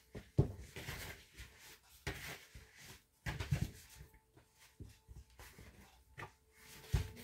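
Kitchen handling noises: irregular light knocks, clicks and short scrapes, with a sharper knock near the start and another about seven seconds in, over a faint steady hum.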